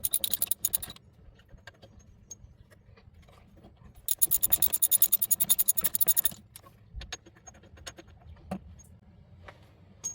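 Ratchet wrench clicking rapidly as the three wheel-hub mounting bolts are backed out. There is a short run of clicks at the start and a longer run of about two seconds midway, with scattered light clicks and clinks between.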